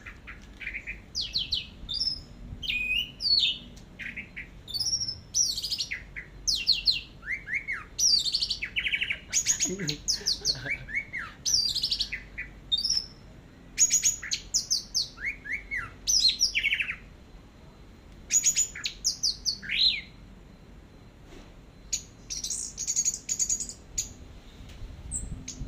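Orange-headed thrush (anis merah) singing long runs of quick, varied whistled phrases and chirps, with a couple of short breaks. This is the sustained, intense 'teler' singing that bird keepers prize.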